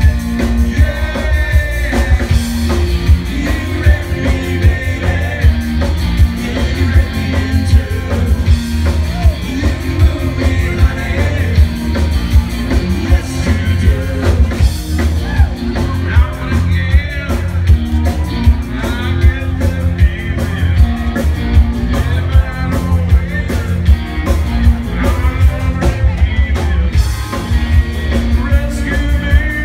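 Live rock band playing a song: a drum kit keeps a steady beat under a heavy bass line, with a voice singing over the band.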